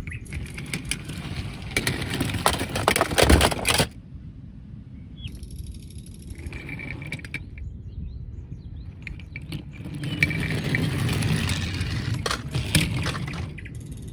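Plastic toy vehicles being handled, with clicking and rattling in two spells: over the first few seconds and again near the end.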